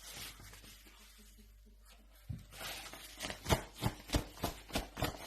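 Quiet room tone for about two seconds, then a quick run of light taps and rustles, roughly three a second.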